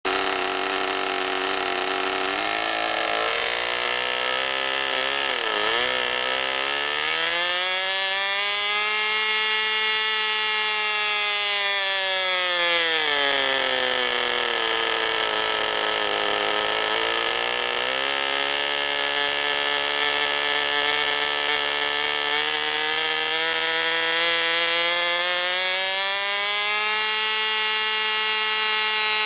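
Radio-control Fw 190 model airplane's small engine running, revved up from a lower speed and back down several times, so its pitch climbs, falls and climbs again.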